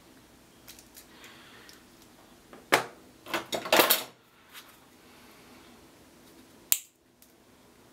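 Metal multi-tool pliers clinking against the hard bench top: a sharp clink about three seconds in, a short run of clattering around four seconds, and a single sharp click near the end.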